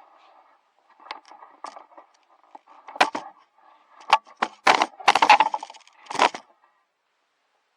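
Dry kindling wood being handled: a run of sharp cracks and clatters, loudest in a cluster about five seconds in.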